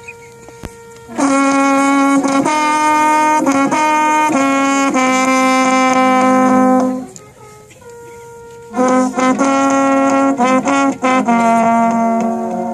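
French horn ensemble playing a melody in two loud phrases with a short pause between them. One horn sounds much louder than the rest and drowns out the other horns.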